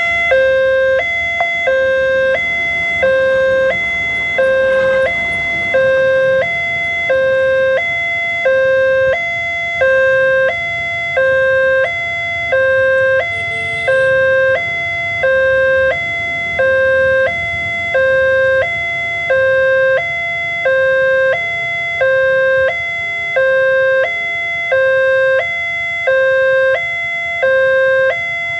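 Railroad level-crossing alarm sounding from the crossing's loudspeaker horn: an electronic two-tone signal that alternates between a lower and a higher tone about once a second, warning that a train is approaching and the crossing is closed.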